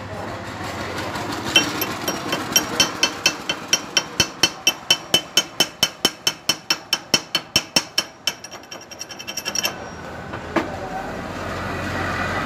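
Fast ringing hammer taps on a fresh weld bead on cast iron, about five a second, stopping about eight seconds in. This is the weld being chipped or peened.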